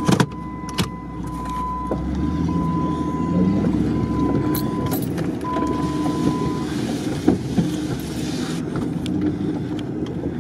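Jeep Grand Cherokee WJ engine running steadily, heard from inside the cabin as the SUV drives over rough, boggy ground, with small rattles and clicks from the body. Sharp knocks come just at the start and again about seven seconds in. A thin steady high tone sounds through the first part and stops about two-thirds of the way in.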